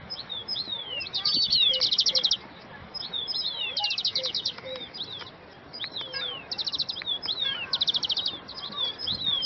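Songbirds chirping: high, quick downward-slurred notes mixed with fast rattling trills, coming again every second or two.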